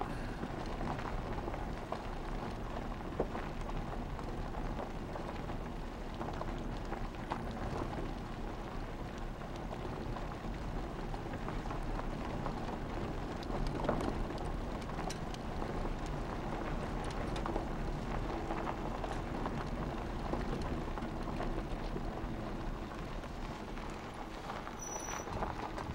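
A vehicle moving slowly over dirt ground, heard from inside through an open window: a steady low rumble from the engine and tyres, with a crackling hiss over it.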